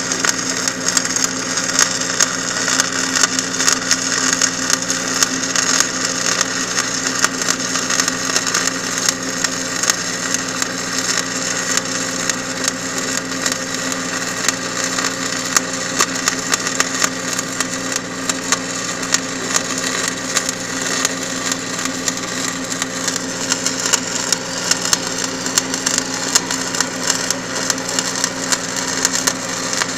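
Welding arc crackling steadily, with a constant machine hum underneath.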